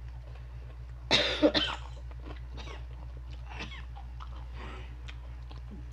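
A person coughs twice in quick succession about a second in, over a steady low hum. Softer chewing of crunchy pork rinds follows.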